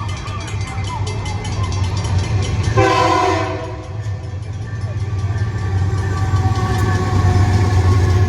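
Freight train led by a GE AC44i diesel-electric locomotive, its engine rumbling steadily and growing louder as it comes closer. Its horn gives one short blast about three seconds in.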